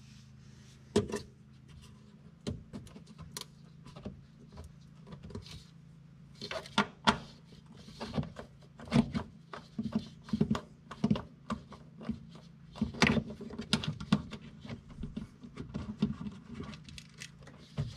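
Irregular clicks, knocks and rattles of hard plastic as a hand works the fog light assembly loose at the back of its housing in a truck's wheel well. The clicks come thick and fast in the second half.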